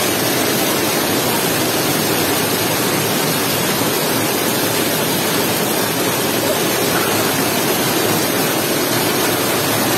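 Summer rain pouring down in a steady downpour, a constant even hiss.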